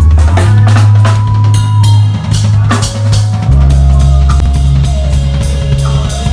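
Loud music at a sound check: a drum kit's kick, snare and cymbals over deep, held bass notes that drop to a lower note about three and a half seconds in.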